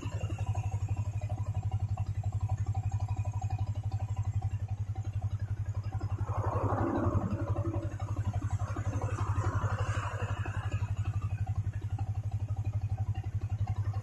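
Motorcycle engine idling steadily, with an even pulse, while the horn stays silent. A brief rustling noise rises over it about six seconds in and again around nine to ten seconds.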